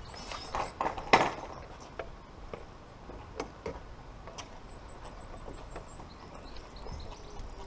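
Scattered clicks and knocks of hand tools and parts being handled, with a short cluster of louder knocks about a second in.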